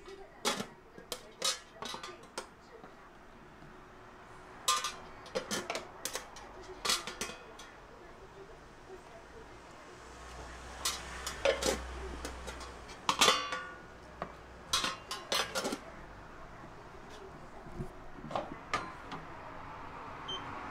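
Eating utensils clinking and knocking against bowls and dishes in irregular clusters, a few of the clinks ringing briefly.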